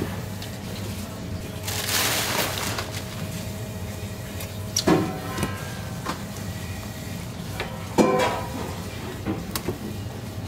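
A polystyrene fish box has its lid scraped open, then two sharp knocks as a whole sea bream is handled on a plastic cutting board, over a steady kitchen hum.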